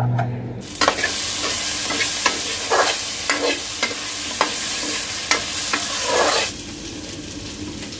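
Potatoes frying in hot oil in a large steel kadai, sizzling steadily while a steel ladle stirs them, scraping and clinking against the pan. The sizzling drops to a fainter hiss about three-quarters of the way through.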